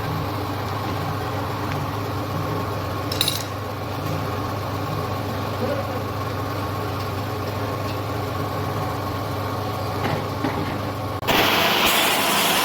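Motorcycle engine idling steadily, with a short click about three seconds in. About eleven seconds in it cuts off abruptly to louder, hissy street noise.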